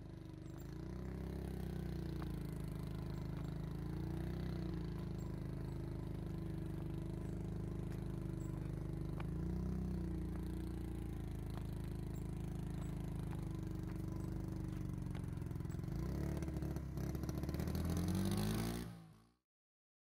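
Small 70cc motorcycle engine running steadily, its revs rising and falling slightly now and then, with some clattering. It fades out shortly before the end.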